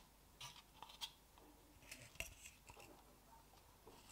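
Faint handling noise: fingers scraping and clicking on a polystyrene cup and a plastic pot, a scatter of short scratches and taps.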